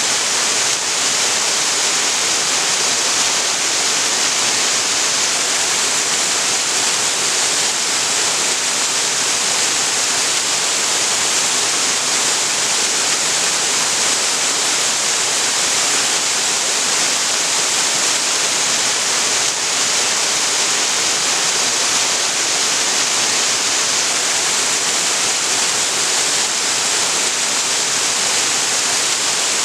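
Small waterfall's water falling and splashing in a steady, unbroken rush.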